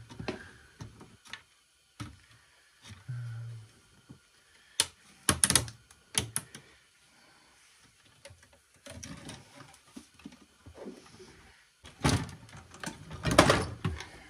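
Circuit boards and a sheet-metal chassis being handled: scattered clicks and clacks, with a louder run of knocking and scraping near the end as a board is lifted out of its metal case.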